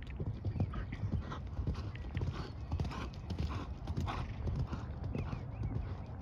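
Hoofbeats of a horse cantering on sand arena footing, a quick run of soft thuds.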